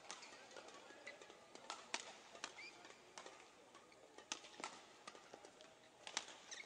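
Badminton rally played faintly: sharp racket strikes on the shuttlecock every second or two, mixed with short squeaks of shoes on the court floor.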